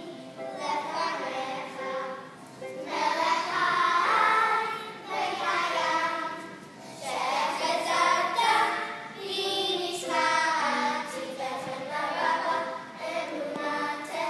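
A group of children singing a song together in unison, with music behind them, in phrases of a couple of seconds each.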